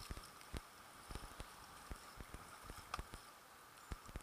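Kayak on the sea: irregular knocks and splashes of water and paddles against the hull, over a steady hiss of moving water.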